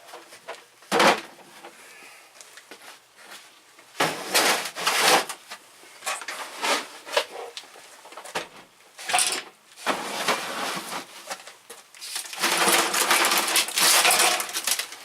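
Tools and tool kit cases being handled and moved about: irregular clattering and rustling, in several bursts, the longest near the end.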